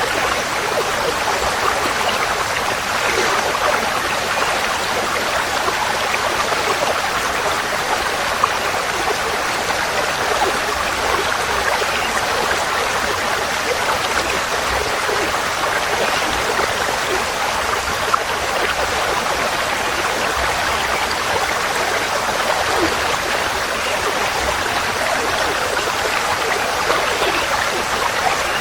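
Forest stream flowing steadily: a constant, even rush of running water.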